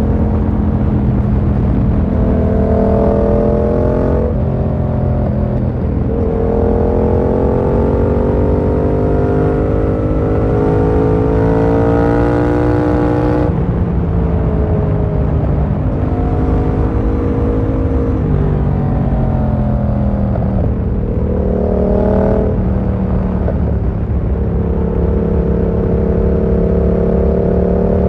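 Yamaha MT-07's 689 cc parallel-twin engine under way, its note climbing with the throttle and falling on gear changes and throttle roll-offs several times, with a sharp cut about halfway through and a steady cruise near the end. A constant low wind rush lies underneath.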